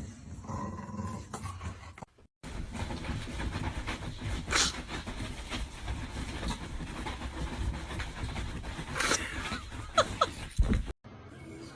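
A dog panting, with a few short, louder sounds near the end.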